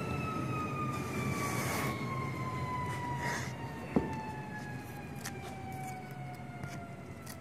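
A motor on the CNC vibrating knife cutting machine spinning down: a whine that falls slowly and steadily in pitch. Over it come the scrape and rustle of cut drywall pieces being handled, and a sharp knock about four seconds in.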